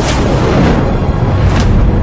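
Loud background music with deep booming hits, one at the start and another about one and a half seconds in, over a heavy low bass.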